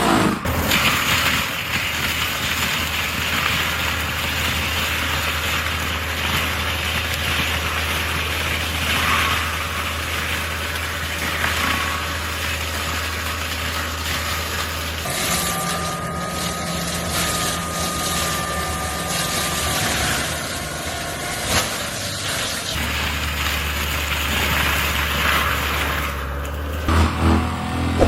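Heavy forestry machinery running under load: a steady low engine hum under a broad rushing, grinding noise. The sound changes abruptly about halfway through, when a steady high whine joins for a few seconds, and changes again about two-thirds of the way in.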